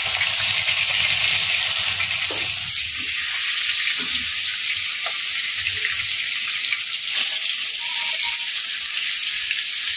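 Turmeric-coated pieces of catla fish frying in hot oil in a kadai, sizzling with a steady high hiss. There are a few light knocks from the spatula in the pan.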